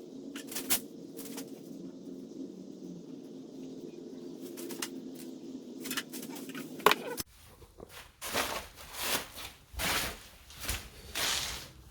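A steady low hum with a few sharp clicks, which cuts off about seven seconds in. Then a run of rough scraping strokes, about one a second, as stripper-softened paint is scraped off a mini bike's metal frame.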